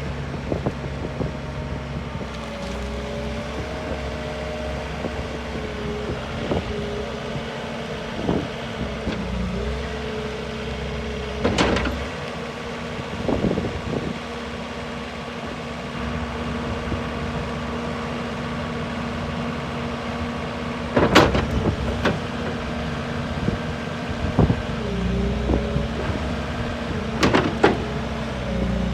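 New Holland LS170 skid steer's diesel engine running steadily, its hum shifting in pitch now and then, with a few sharp clanks from the machine.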